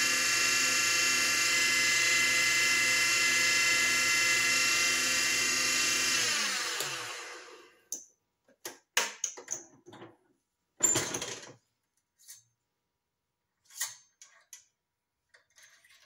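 Small benchtop wood lathe running a pen mandrel with a steady whine, switched off about six seconds in and winding down to a stop. Then a few short clicks and knocks of handling the mandrel and pen barrel, the loudest about eleven seconds in.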